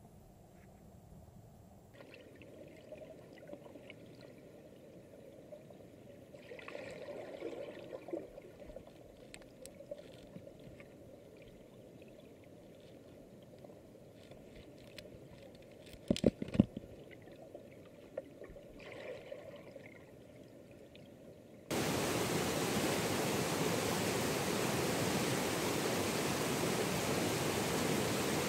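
Muffled underwater sound picked up by a submerged camera, faint and hushed, with a quick cluster of sharp knocks about two-thirds of the way through. About three-quarters through it cuts abruptly to the loud, steady rush of river water tumbling over rapids.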